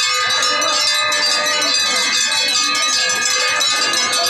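Many bells ringing together without a break, a dense, steady ringing, with crowd voices underneath.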